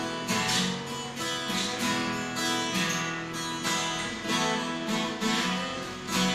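Acoustic guitar strumming chords in a steady rhythm, playing an instrumental passage without singing.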